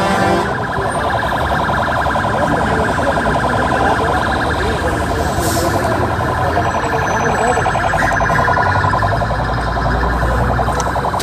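Emergency vehicle siren sounding a fast, steady pulsing warble.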